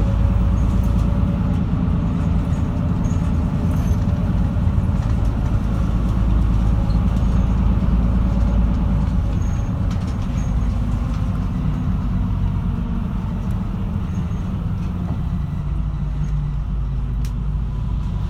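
Steady engine drone and road noise of a moving route bus, heard from inside the passenger cabin.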